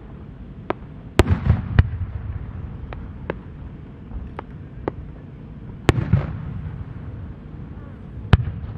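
Aerial firework shells bursting: three loud booms, about a second in, near six seconds and near the end, each followed by a rolling rumble, with lighter sharp reports between them.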